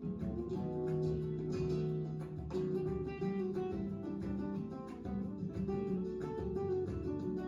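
Background music: acoustic guitar plucking and strumming a steady run of notes.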